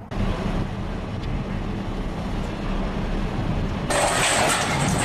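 Vehicle engine running with a low steady hum. About four seconds in, the sound changes abruptly to a louder, rougher noise.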